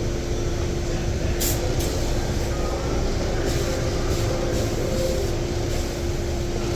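Steady machinery running noise, heavy in the lows, with a constant hum tone and a few faint clicks.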